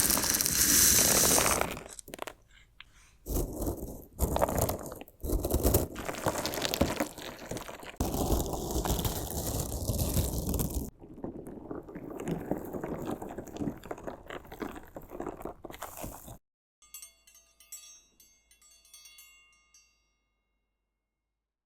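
Crunchy slime being cut and stabbed, a run of loud crunching, squishing strokes with short gaps that stops about sixteen seconds in. Faint ringing tones follow for a few seconds.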